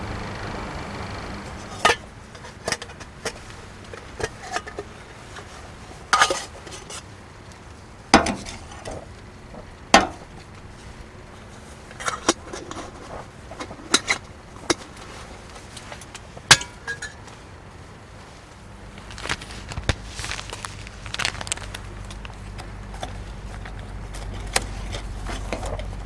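Scattered clinks and knocks of cookware and utensils being handled: a dozen or so sharp taps, a second or two apart, over most of the stretch. A low steady rumble sets in near the end.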